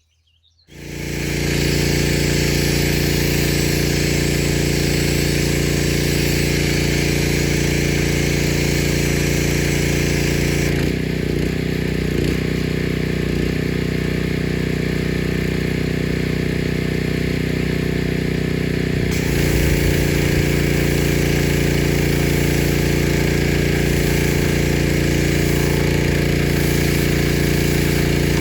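Pressure washer running steadily with the hiss of the spray, starting abruptly about half a second in. The hiss thins out for several seconds midway while the motor keeps running, then comes back.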